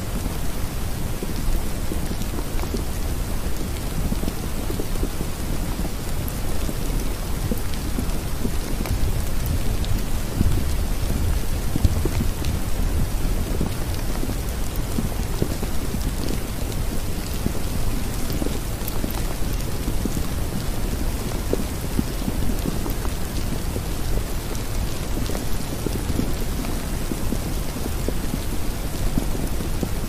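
Wind in a snowstorm buffeting the microphone: a steady, loud low rumble with a fainter hiss above it.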